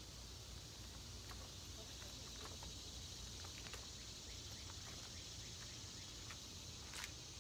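Faint, steady high-pitched chorus of evening insects, with scattered light ticks and one sharper click about seven seconds in.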